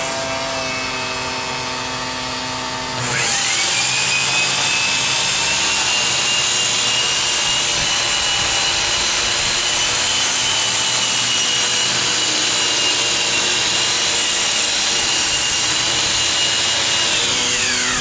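Handheld angle grinder grinding the steel roof of a caboose. About three seconds in the motor spins up to a high, steady whine over a harsh grinding hiss, and near the end it winds down.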